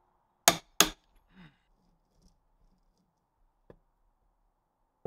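Two sharp metal clicks about a third of a second apart from a ratchet and socket worked on a differential pinion nut, followed by faint handling sounds and one light tick.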